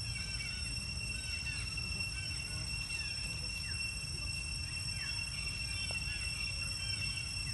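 Outdoor ambience: a steady high-pitched drone with many short, high chirps over a low rumble.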